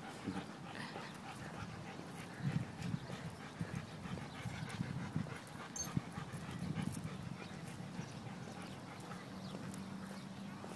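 Walking on a dirt trail: irregular footsteps and scuffs with uneven low rumbles of wind on the microphone, and a faint steady low hum near the end.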